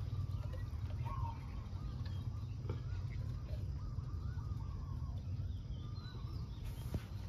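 Birds chirping and calling in short wavering notes over a steady low rumble, with a couple of light knocks.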